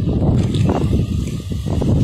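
Wind buffeting the microphone in a heavy low rumble, over a hooked fish splashing at the water's surface as it is drawn into a landing net.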